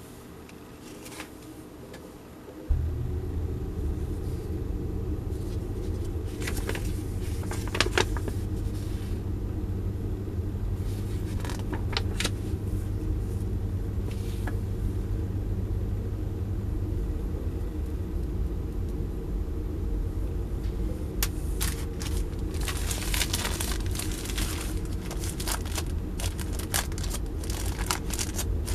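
A steady low rumble starts suddenly about three seconds in and carries on throughout. Over it, a paper instruction leaflet rustles and clicks as it is unfolded and handled. Near the end comes denser crinkling of a thin plastic bag being pulled open.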